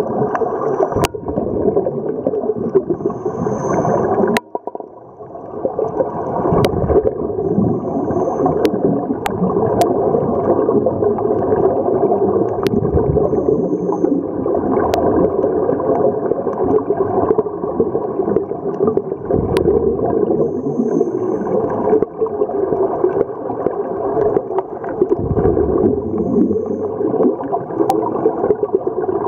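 Muffled underwater gurgling and rushing of scuba regulator bubbles, heard through the camera's housing, with about a dozen sharp clicks scattered through it.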